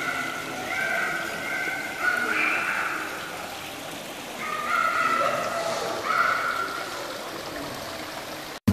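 Indoor tiered stone water fountain splashing and trickling steadily, with faint held tones over it that change pitch in steps. At the very end it cuts abruptly to guitar music.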